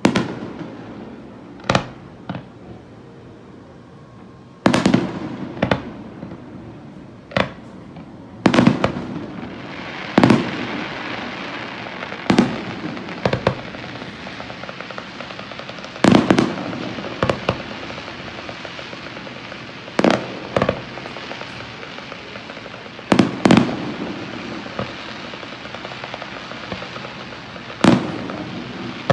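Aerial fireworks bursting: a long run of sharp booms at uneven intervals, every second or few seconds, some in quick pairs. A steady hiss fills the gaps and grows thicker after the first few seconds.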